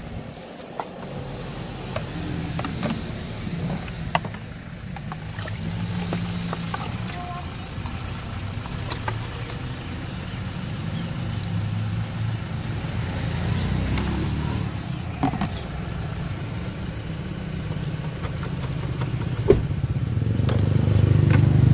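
Nearby vehicle engines and road traffic making a steady low rumble that grows louder near the end, with a few light knocks and clicks from plastic cups and a ladle being handled.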